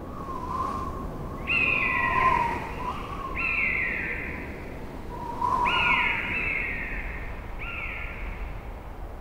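A bird calling: four falling, whistled cries about two seconds apart, with lower wavering notes between them, over a steady low background noise.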